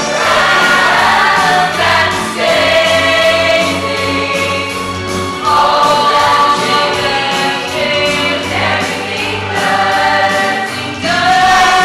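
A large mixed-voice ensemble singing a musical-theatre song live with musical accompaniment, moving through a series of held notes.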